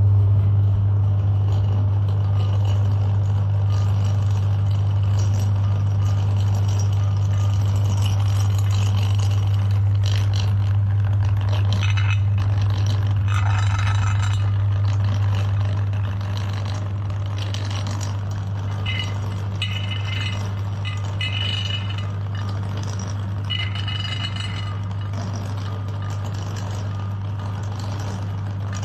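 Electric meat grinder running with a steady, loud motor hum, with rattling, clinking and scraping from the grinder as material is fed through. The hum eases slightly about halfway through.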